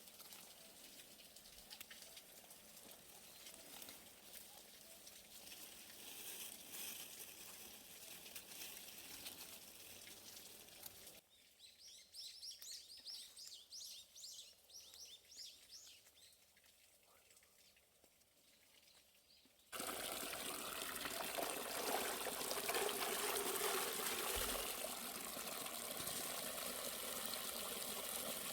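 Water running and splashing. It is faint at first, and after a sudden cut about twenty seconds in it becomes a louder steady rush. In between is a quieter stretch with a run of short high chirps.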